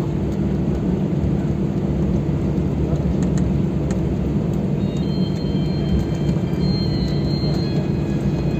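Steady low rumble of an airliner cabin as the jet taxis after landing, engines running.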